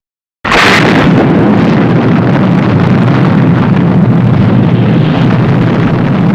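Cinesound 'Stingray' explosion sound effect: a sudden blast about half a second in, sharp and crackling at the onset, then a loud, sustained low rumble that rolls on for several seconds.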